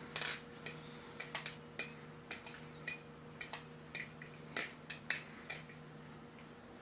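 Balisong (butterfly knife) being flipped by hand: its handles and blade click together in an irregular run of light, sharp clicks, about two a second.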